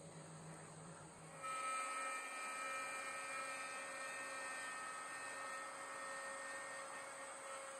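Festool plunge router running at a steady speed with a high multi-tone whine, cutting into a wooden board. It comes in suddenly about a second and a half in, over a quieter low hum.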